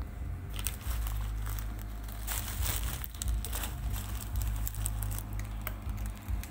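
Continuous band sealer running with a steady low hum, while a plastic bag crinkles and crackles as the sealing belts carry it through, thickest around the middle.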